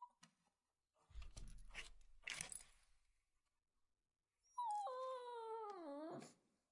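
Shih Tzu puppy whining: one long whine in the second half that slides down in pitch and breaks off abruptly. Earlier come rustling sounds and a soft low thump about a second in.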